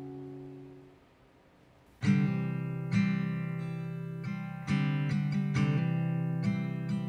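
Background music: one piece fades out over the first second, leaving a moment of near silence, then a new piece starts about two seconds in with strummed guitar chords, each strum ringing out.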